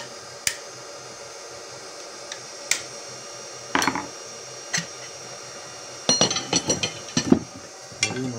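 Metal clicks and clinks of a hollowing tool's interchangeable cutter being changed from a ring cutter to a hook, a few single taps and then a quick run of clinks near the end. Under them is the steady hum of the wood lathe running.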